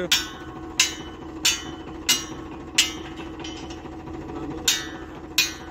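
Hand hammer striking metal at the base of a tractor-mounted borewell rig: about eight sharp, ringing blows, roughly one every two-thirds of a second with a short pause near the middle, over the tractor engine idling steadily.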